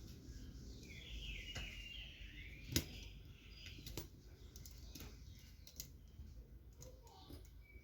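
A few sharp, isolated clicks and taps of small parts being handled as a carbon brush and its spring are pushed into place in a blender motor. The loudest click comes about three seconds in, and there are faint high chirps in the first two seconds.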